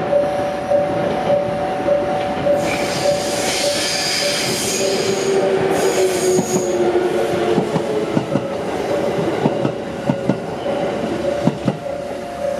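Japanese level-crossing warning bell ringing in a steady repeating beat while a Minobu Line train crosses. From about two to seven seconds in there is high-pitched wheel squeal and a tone sliding down in pitch. Wheel clicks over the rail joints follow in the second half.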